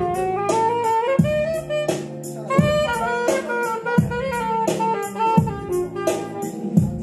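Live band playing a jazzy instrumental: a saxophone carries the melody over a steady drum-kit beat and sustained low notes.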